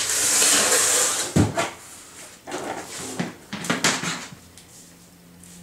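Handling sounds of a cardboard box and a power cord: a loud rustling scrape, a sharp knock about one and a half seconds in, then scattered lighter clicks and taps.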